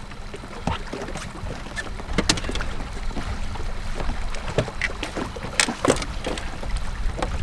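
Steady low rumble of a fishing boat on open water, with wind on the microphone. Over it come several sharp knocks and clicks as gear is handled at the stern.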